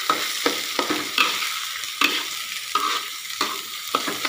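Metal spatula scraping and turning raw soaked rice in a steel wok, with repeated sharp scrapes two to three a second over a steady sizzle of frying oil. The rice is being sautéed in oil with the aromatics before it goes into the rice cooker.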